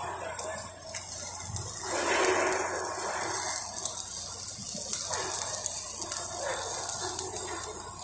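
Stick (SMAW) arc welding on a steel pipe joint: the electrode arc makes a steady hissing crackle over a low hum, with a louder stretch about two seconds in.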